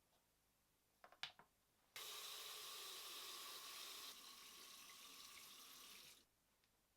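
A few light knocks, then water runs from a tap in a steady stream for about four seconds and is shut off suddenly.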